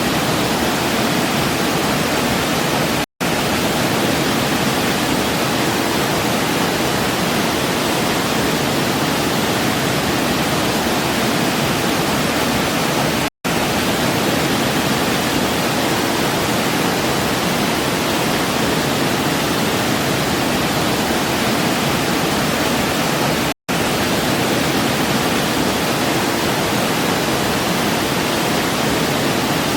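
Waterfall: a steady rush of falling water, broken by three brief dropouts to silence about ten seconds apart.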